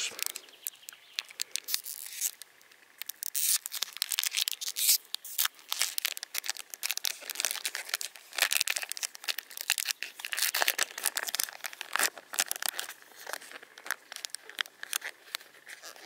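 Pokémon Shining Fates booster pack's foil wrapper being torn open and crinkled by hand, with irregular crackling and tearing.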